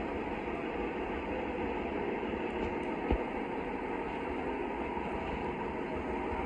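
Wind buffeting the microphone in gusts over a steady hum of city traffic, with a single click about three seconds in.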